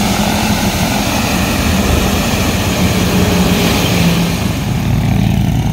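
An Airbus AS350-type light turbine helicopter running on the ground, its turbine and main rotor going steadily with a rapid low rotor chop under a broad rush.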